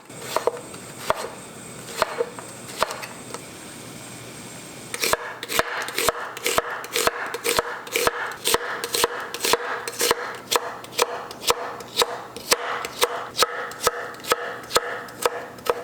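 Kitchen knife slicing vegetables on a cutting board, julienning them: slow single cuts about a second apart at first, then, about five seconds in, a quick even run of chops, about three a second.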